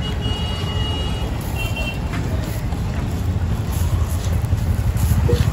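Steady low rumble of street noise, with a couple of thin high tones in the first two seconds.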